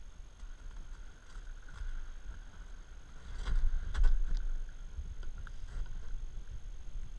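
Kayak hull pushing through thin creek ice, with scattered crunching and cracking knocks over a low rumble. The loudest crunches come about three and a half to four seconds in.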